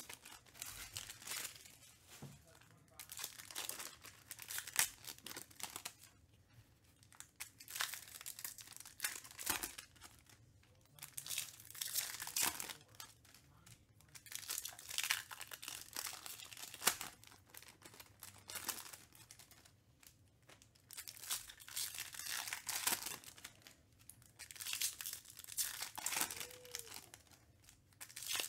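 Foil trading-card pack wrappers crinkling and tearing as packs are opened one after another, in repeated bouts every two to three seconds.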